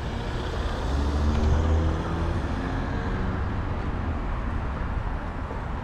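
A motor vehicle drives past close by: its engine hum grows and peaks about one to two seconds in, then fades, over a steady low rumble of road and wind noise.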